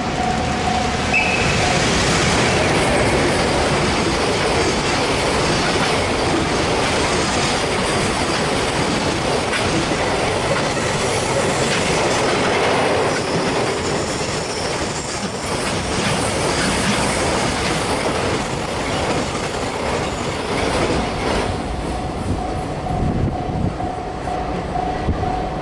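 Train passing over a level crossing: a loud, continuous rumble with wheels clattering over the rail joints and some wheel squeal. The crossing's warning bell is buried under the train, then rings out again clearly about 21 seconds in as the train clears.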